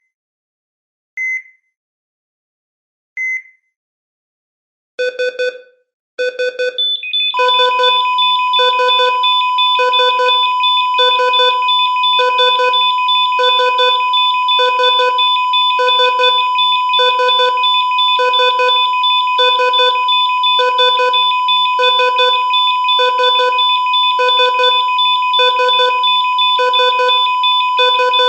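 Hospital patient heart-rate monitor beeping. First come a few single high beeps about a second and a half apart. From about five seconds in there is a steadier beep a little over once a second. About seven seconds in a continuous high alarm tone joins it and holds under the beeps to the end.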